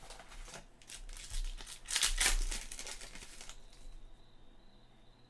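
A plastic trading-card pack wrapper crinkling and tearing as it is opened. The crackling rustle peaks about two seconds in and dies away after about three and a half seconds.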